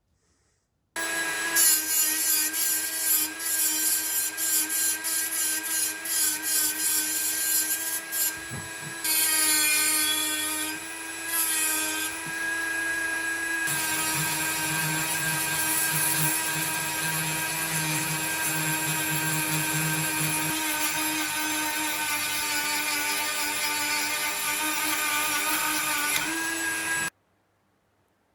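A small high-speed power tool runs continuously with a steady whine, its grinding noise varying in the first half as it bears on the work, then stops abruptly near the end.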